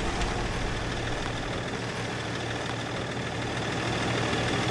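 Vehicle engine running steadily with a low hum.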